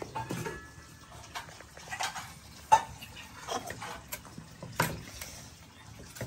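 A few sharp knocks and clinks from handling a steel pot and plate, the loudest about two and a half seconds in, over a low background.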